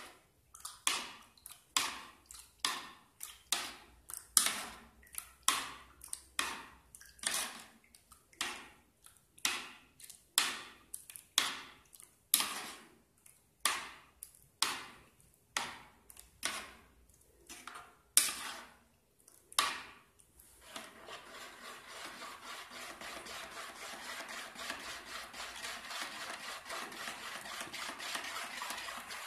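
Plastic spoon stirring thickening liquid hand-wash gel in a plastic bowl, the stage where the SLES is mixed in and the mix thickens. At first it comes as separate scraping strokes, about one and a half a second; some twenty seconds in, the strokes give way to fast continuous stirring, a steady swishing.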